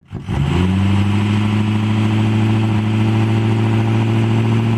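Diesel pickup truck engine revved up and held at high revs, its pitch climbing in the first half second and then staying steady. The throttle is floored hard enough to pour out thick black exhaust smoke ("rolling coal").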